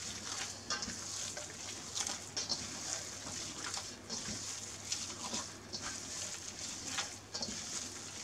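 Hands kneading a moist, butter-rich Stollen yeast dough in a stainless steel bowl: irregular sticky squishing and slapping of the dough.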